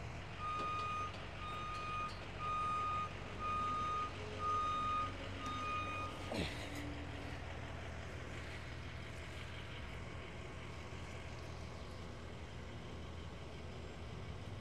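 Backup-style warning alarm beeping evenly, about ten beeps over six seconds, then stopping, over a truck engine running steadily. This is the kind of motion alarm that sounds while a vehicle or lift is moving.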